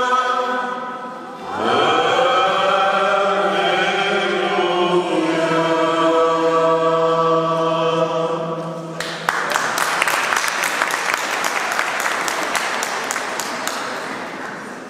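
Mixed church choir singing the close of a hymn, ending on a long held chord. About nine seconds in the singing stops and applause breaks out, a dense patter of clapping that slowly fades.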